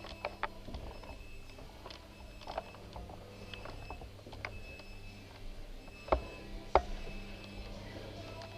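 Scattered sharp clicks and knocks, with two louder knocks about six and seven seconds in, over a steady low hum and a few faint short high beeps.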